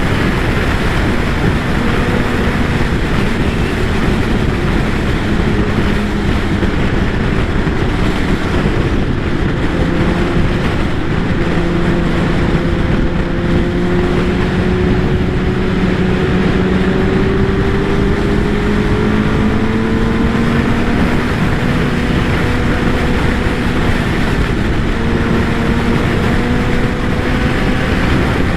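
Kawasaki ZX-10R's inline-four engine running at a steady cruise under heavy wind rush, its note climbing slowly through the middle, then dropping and climbing again near the end.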